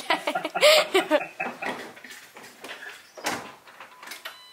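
A short bit of voice in the first second, then a few scattered knocks and clicks, and a brief electronic beep near the end.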